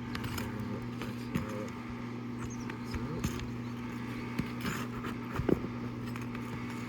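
Asphalt roof shingles being worked loose by hand: scattered scrapes, clicks and knocks as the seals are broken and the shingle is pried up, with one sharper knock about five and a half seconds in. A steady mechanical hum runs underneath.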